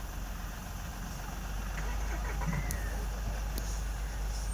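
Safari vehicle's engine idling, a low steady rumble.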